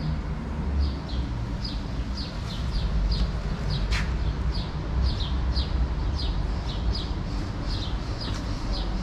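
A bird chirping over and over, short falling high notes about twice a second, over a steady low rumble. A single sharp click about four seconds in.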